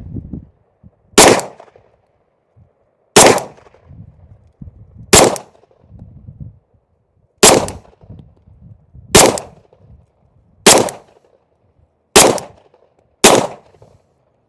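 Eight single shots from a 9mm Sig P320 in a Flux Raider X pistol-carbine chassis, fired at a steady slow pace about one and a half to two seconds apart, each a sharp report with a brief tail.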